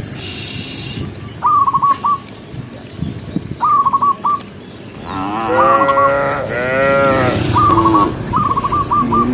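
Cattle mooing: two long moos, one right after the other, past the middle. A short high trilling call repeats every couple of seconds throughout.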